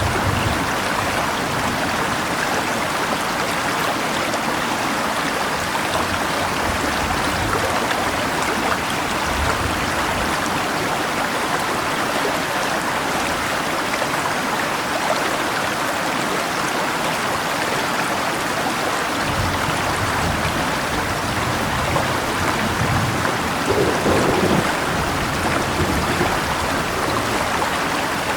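Steady rushing of a river with rain falling, an even wash of water noise, with low rumbles coming and going, the strongest about two-thirds of the way through.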